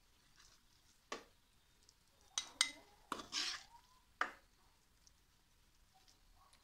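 Perforated steel ladle clinking and scraping against a pan and a glass bowl while thick koottu curry is scooped out: about five sharp clinks and a short scrape between one and four seconds in.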